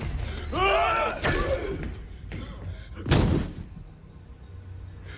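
Hand-to-hand fight: a man's strained, wavering yell about half a second in, then one heavy thud about three seconds in as bodies hit the gym floor.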